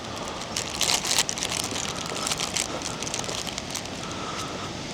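Steady rushing noise of a waterfall, with crackling rustles of handling noise about a second in.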